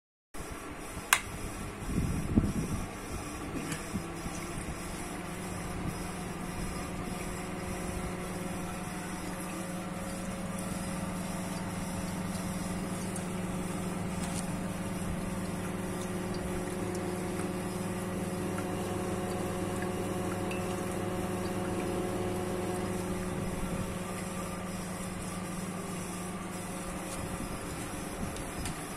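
A rocker switch clicks about a second in, with a few handling bumps just after. Then an egg incubator's fan hums steadily.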